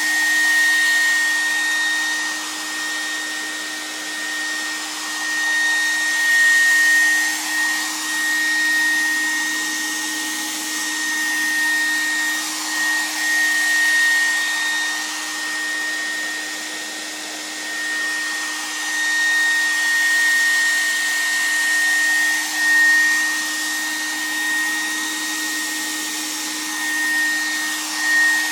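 Handheld hair dryer running steadily: a rush of air with a constant high whine. It swells and fades as it is moved back and forth over the front of a telescope tube.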